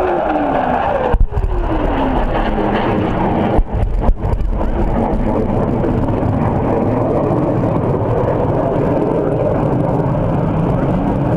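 Aircraft flying past with a loud steady roar, its pitch falling as it goes by; the sound cuts out briefly a few times.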